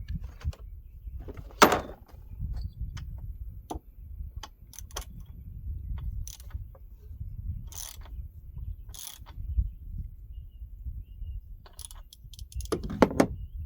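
Hand tools and metal parts clinking and knocking while a spark plug is fitted to a small trimmer engine, with one sharp knock about two seconds in, two short scraping rasps in the middle and a run of clicks near the end, over a steady low rumble.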